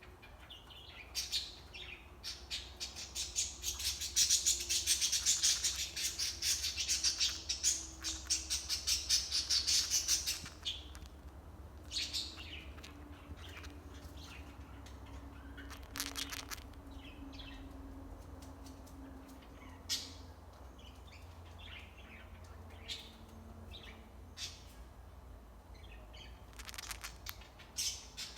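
Cockatiel grinding its beak: a rapid, dry rasp of tiny clicks, dense and loudest through the first ten seconds, then coming in shorter, scattered bouts.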